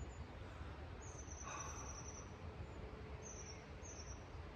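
Small birds calling faintly with high, thin notes: one longer call about a second in, then two short ones near the end, over a low steady outdoor rumble.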